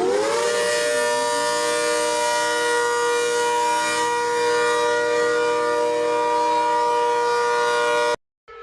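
Emergency alert siren finishing a quick upward wind in pitch in the first half second, then holding a steady chord of several tones for about eight seconds before cutting off abruptly near the end.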